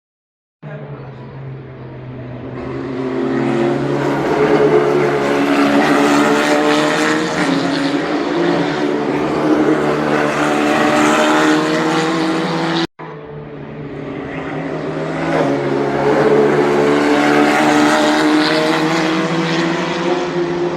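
Formula 4 single-seater race car engine running at high revs on track, growing louder over a few seconds and then holding loud. It cuts off abruptly about two-thirds of the way through, and a second stretch of the same engine sound swells up again.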